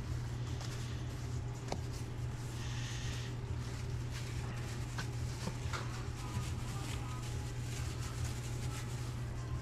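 Steady low hum of restaurant kitchen equipment, with a brief rustle of thin plastic deli gloves being handled and pulled on about three seconds in, and a few light clicks from work at the counter.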